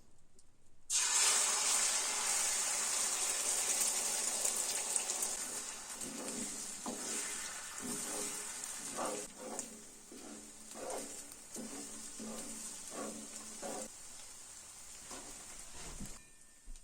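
Food sizzling in a hot pan. The sizzle starts suddenly about a second in, as the food hits the pan, then slowly eases off, with scattered pops and spits.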